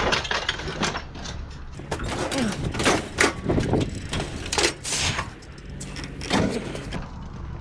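Sheet-metal kitchen stove being shoved and dragged into a pickup truck bed, scraping and clattering with a string of irregular knocks and bangs, the loudest about three and five seconds in.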